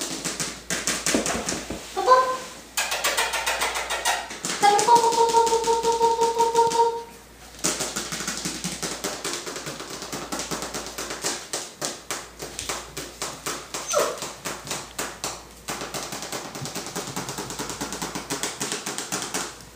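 Corgi puppies squeaking and whining: a short cry about two seconds in, then a steady high whine held for about two seconds, and a falling yelp later on. Constant fast clicking and scuffling runs underneath.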